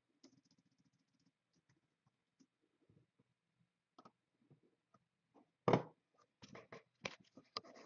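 Faint clicking and scratching as trading card packs and cards are handled, with louder, quicker clicks and rustles from a little under six seconds in.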